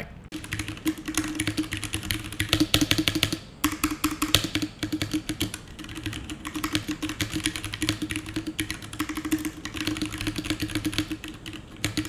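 Fast typing on an ASUS ROG Falchion compact mechanical keyboard with Cherry MX Red linear switches, making a rapid, continuous run of key clacks as the keys bottom out. The typing pauses briefly about three and a half seconds in.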